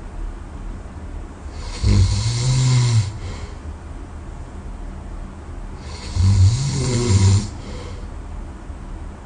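A sleeping person snoring: two loud, low-pitched snores about four seconds apart, each lasting about a second, with quieter breathing between them.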